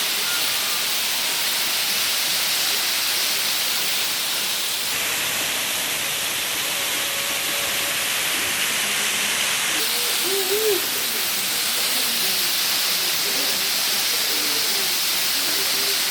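Waterfall: falling water rushing as a steady hiss, with a brief faint pitched sound about ten seconds in.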